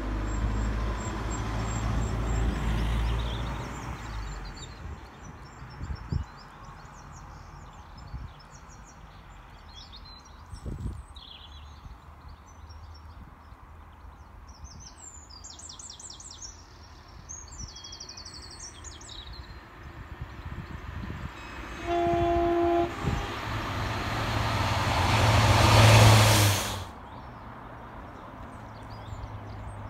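A train sounds a short horn blast, then approaches and passes close by, its rumble and rushing noise rising to a loud peak before cutting off suddenly. Before that, the rumble of another train fades away in the first few seconds and small birds chirp.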